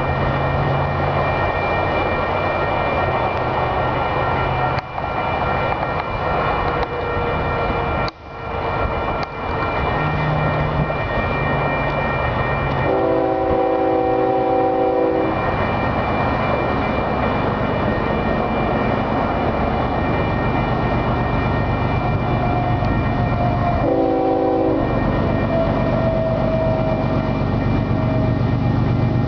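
Approaching Union Pacific stack train sounding its locomotive's air horn, a chord of several tones: one long blast about 13 seconds in and a short one about 24 seconds in, over the train's steady running noise.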